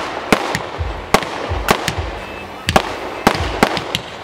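A daylight firework battery (cake) firing shot after shot: dull launch thumps under sharp cracks, about three a second.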